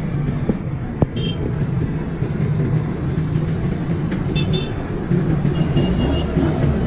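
Steady low rumble of a running motor vehicle engine, with a sharp click about a second in and a few short high horn-like beeps.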